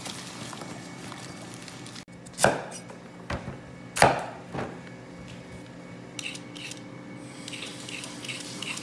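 A cleaver chops through a white radish onto a wooden chopping board: two heavy chops about a second and a half apart, with lighter knocks between. Then a handheld peeler scrapes the radish in quick repeated strokes, about two a second.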